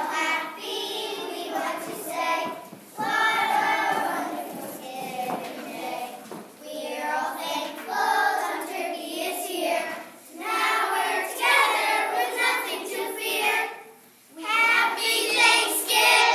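A group of young children singing a song together, in phrases with short breaks between them.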